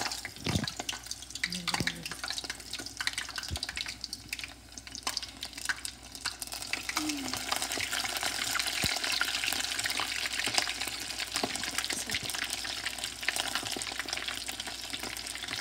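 Breaded chicken drumsticks deep-frying in a pot of hot oil: a dense, crackling sizzle of bubbling oil that grows fuller about halfway through as more drumsticks go in. A few knocks near the start as they are placed in the pot.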